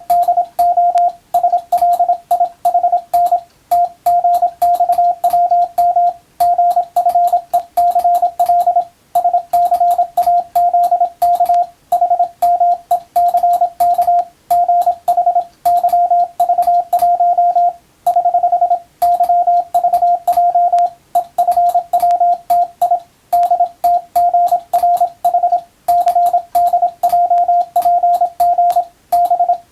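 Morse code (CW) tone of about 700 Hz keyed rapidly in dots and dashes, with short pauses between letters and words and a faint click at each keying edge.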